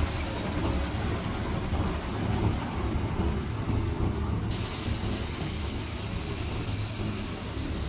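Water tanker truck's engine running as it moves slowly, with a steady hiss of water spraying from its rear onto the dirt road.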